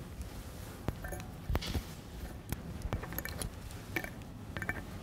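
Irregular small clicks, taps and rustles of something small and hard being handled, with a few sharper knocks scattered through.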